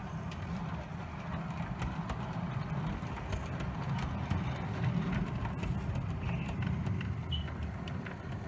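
Model train running along the track: a steady low rumble from its motor and wheels, a little louder in the middle, with scattered light clicks from the wheels on the rails.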